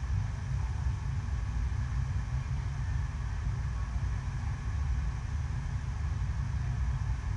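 Artificial sheet-wave machine: a sheet of water rushing up the wave surface, driven by pumps, with a deep, steady rumble and no let-up.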